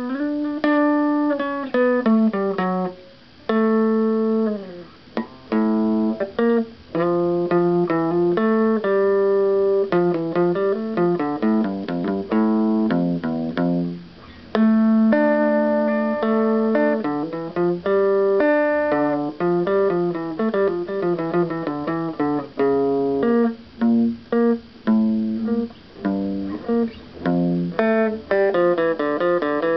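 Electric guitar played through an Alpinist 418 transistor radio used as a mini amplifier, with a germanium GT404 output stage and the radio's own small speaker: a continuous stream of picked single notes and quick melodic runs with brief pauses. The radio is fed 9 V through a wirewound variable resistor and a small lamp in series.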